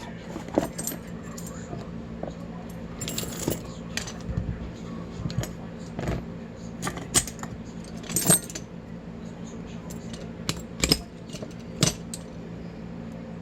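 Irregular sharp metallic clicks and clinks of small lock parts and tools being handled as a Craftsman-branded Abus padlock is taken apart, over a steady low hum.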